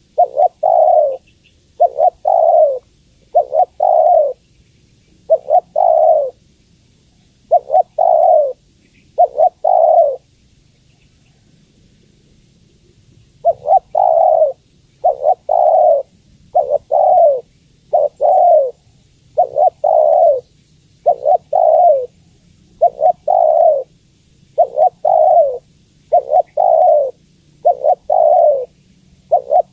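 Spotted dove cooing: a long run of short, low coo notes, a little under one a second, with a pause of about three seconds near the middle. Offered as a female's call, used to draw in males.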